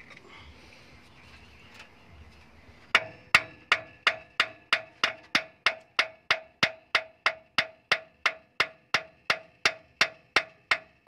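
Steel hammer striking a truck's steering knuckle to work the king pin loose for removal. After about three seconds without blows, steady hammer strikes begin, about three a second, each with a short metallic ring.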